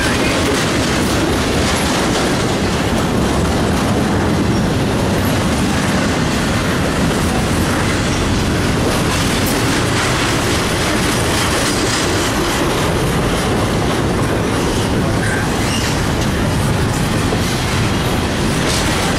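Intermodal freight cars loaded with semi-trailers and containers rolling past close by: a steady, loud rumble and clatter of steel wheels on the rails.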